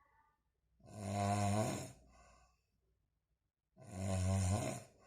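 A man snoring in deep sleep: two long, loud snores about three seconds apart, each followed by a fainter breath out.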